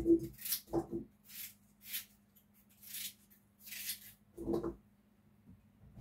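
Potato being pared and cut with a small kitchen knife: a few short scraping strokes about a second apart. A few short low-pitched sounds come near the start and again about four and a half seconds in, over a faint steady hum.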